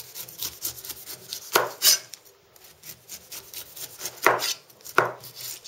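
A kitchen knife slicing strips of rind off a pineapple, the blade rasping through the tough skin and tapping the cutting board. There are many short scrapes, with the loudest strokes a little under two seconds in and twice near the end.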